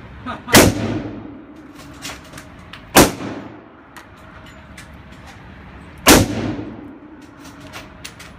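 Three gunshots about three seconds apart, each a sharp crack with a ringing echo tail in the enclosed indoor range, with a few faint clicks of gun handling between them.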